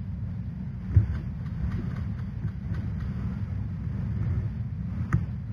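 Low steady rumble of wind and handling on a body-worn camera's microphone, with light footsteps on wooden deck boards; a single knock about a second in and a sharp click near the end.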